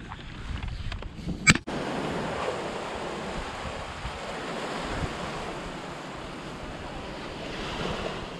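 Surf washing on a beach with wind buffeting the microphone, a steady rush of noise. About a second and a half in there is a sharp click before the rush sets in.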